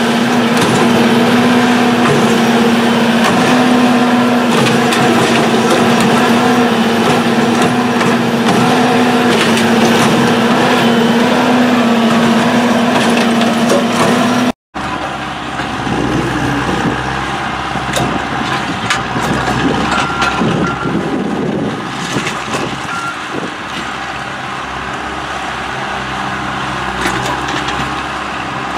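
Railroad tie extractor's engine and hydraulics running with a steady drone. After an abrupt cut about halfway, a tie crane's engine runs lower, with scattered knocks.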